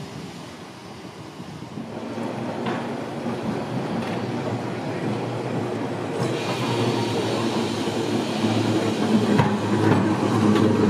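Vintage electric tramcar running on street track, growing louder as it comes close and passes, with a steady low hum near the end.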